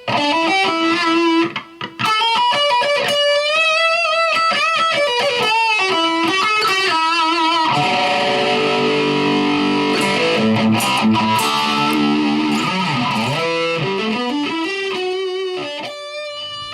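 Electric guitar playing a melodic lead line with bent notes and vibrato, moving into fuller, thicker chords about halfway through.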